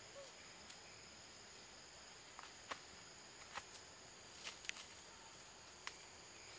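Faint, steady high-pitched insect drone, with a few short sharp clicks scattered through the middle and latter part.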